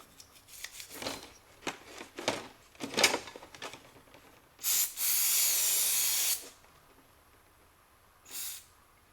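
Quick scraping strokes while ignition switch contacts are scrubbed clean, then a loud hiss of spray lasting nearly two seconds, and a short second puff of spray near the end.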